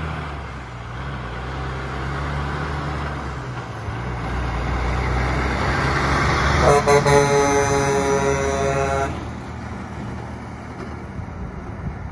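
A diesel semi truck pulling a tank trailer drives past, its engine sound building as it nears. About seven seconds in it gives one horn blast of a couple of seconds, then the engine sound drops away as it pulls off.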